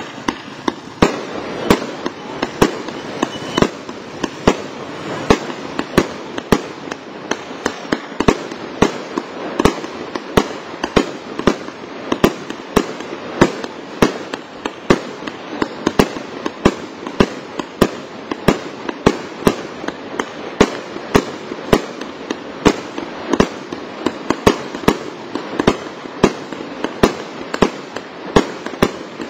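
Crown Pyrotechnics CP132-100 100-shot vertical firework cake firing shot after shot. It gives a steady run of sharp reports, about two to three a second, with continuous crackling from the shells' crackling tails in between.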